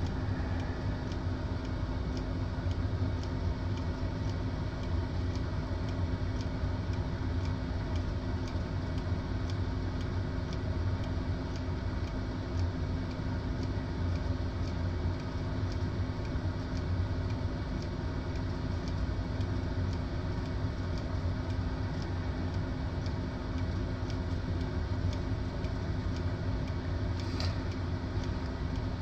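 Air fryer running: a steady fan hum with a low drone and a constant tone, with faint regular ticking over it.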